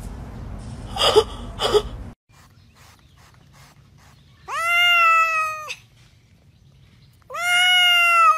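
Grey tabby cat meowing loudly twice in long, drawn-out meows, each rising at the start and then held. Before them come two short sharp sounds over a rough noisy background.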